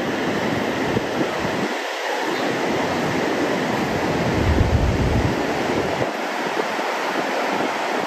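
Pacific Ocean surf rushing steadily on the beach, with wind buffeting the microphone in low, uneven gusts that are strongest about halfway through.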